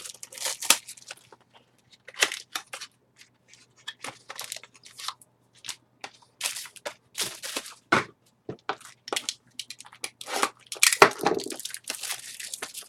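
Trading-card packaging being handled and opened: irregular crinkling, tearing and crunching of wrappers and cardboard, with a faint steady low hum underneath.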